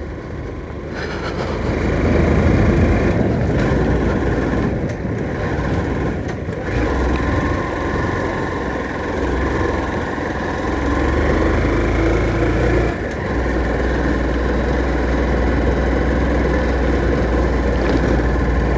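Motorcycle engine running under load as the bike climbs a steep slope in low gear, with road and wind noise; the engine note rises after the first couple of seconds and dips briefly about thirteen seconds in.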